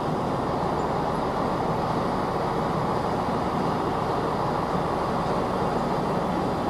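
Steady low rumble of a London Midland electric multiple unit running slowly through the station, blended with the station's echoing background noise, with no horn or clear individual clanks.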